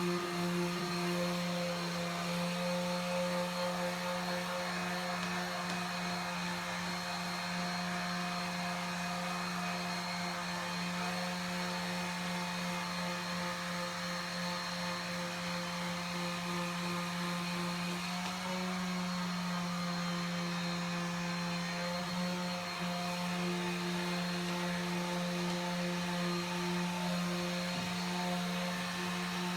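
Electric sander running steadily with an even motor hum, sanding down a painted plywood surface between coats of paint.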